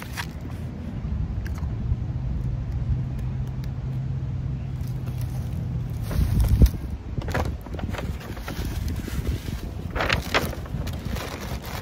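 A low steady rumble that swells and stops about six and a half seconds in, then a paper takeout bag crinkling and rustling as a hand rummages inside it.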